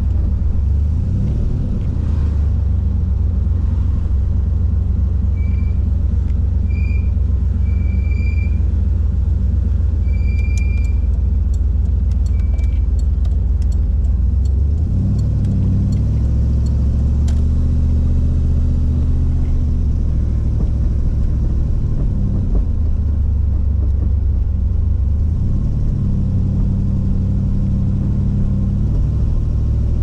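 Boosted 408 cubic-inch LS V8 in a 1980 Ford Thunderbird running as the car drives slowly, a deep exhaust rumble whose pitch steps up and down several times.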